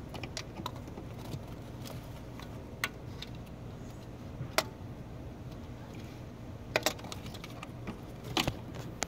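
Scattered light metallic clicks and clinks of tools being handled, over a low steady hum.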